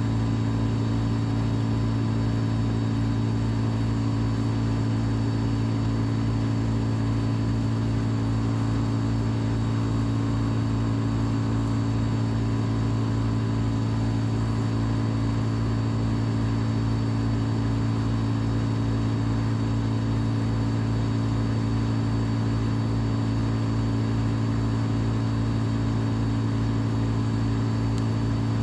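Vermeer BC700XL wood chipper's engine running steadily at a constant speed, with a regular low pulse of a few beats a second.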